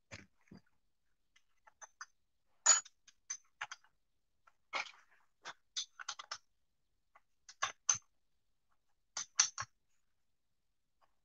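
Irregular sharp metallic clicks and taps as parts and tools are handled while reassembling a plunger sprayer pump's brass manifold. The loudest come about a quarter of the way in and again near the end.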